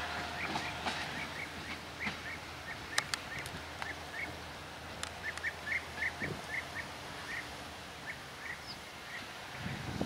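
Birds chirping in short, repeated calls, over the faint low rumble of a departing train that fades away about halfway through.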